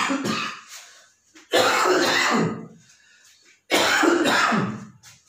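A man coughing and clearing his throat in three loud bouts, about two seconds apart.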